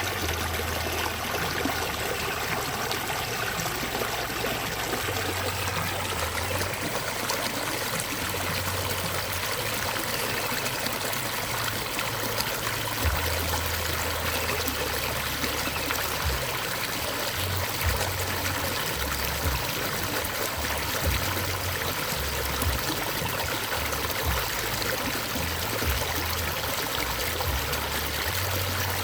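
Running water flowing steadily, a continuous trickling stream sound, with intermittent low rumbles underneath.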